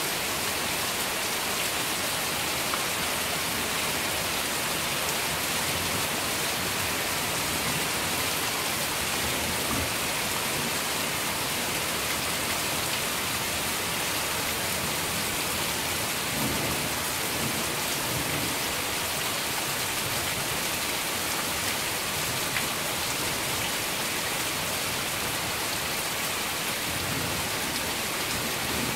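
Heavy rain falling steadily, a dense even hiss and patter of drops. A low rumble, likely distant thunder, swells a little past halfway.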